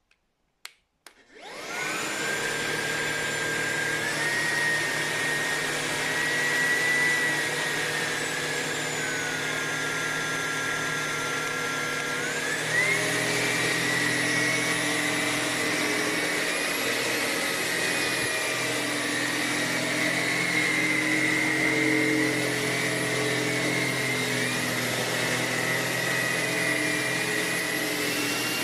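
Tineco A30S cordless stick vacuum cleaner: a couple of clicks, then the motor starts up and runs with a steady whine whose pitch steps down and back up a few times.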